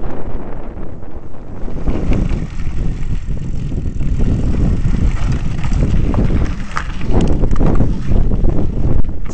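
Wind buffeting the microphone over the rumble of mountain-bike tyres rolling on a gravel track, with a few sharp clicks and knocks, the clearest about two-thirds of the way through.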